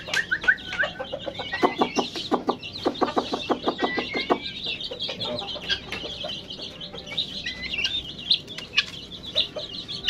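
Hen clucking in a rapid run of short clucks from about a second and a half in for some three seconds, over constant high peeping of young poultry.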